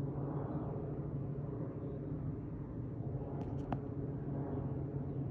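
Twin-engine jet airliner passing overhead, a steady low rumble. A few brief clicks about three and a half seconds in.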